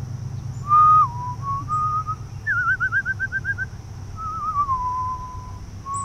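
A person whistling a string of clear notes: short gliding phrases, a fast warbled trill about two and a half seconds in, then a long level note near the end.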